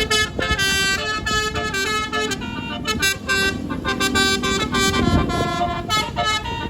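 Multi-trumpet telolet bus horn playing a fast tune of short, changing notes one after another.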